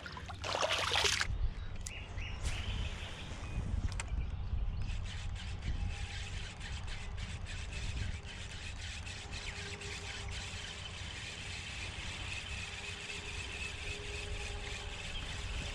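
A spinning rod cast with a short swish near the start, then the spinning reel being cranked to retrieve the lure, heard as a fast run of faint ticks over a steady low rumble.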